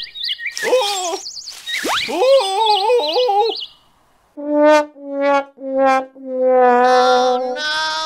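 Cartoon sound effects: warbling, squeaky chirps and a quick upward whistle-like sweep in the first few seconds, then a comic brass sting of four notes, three short and the last one held.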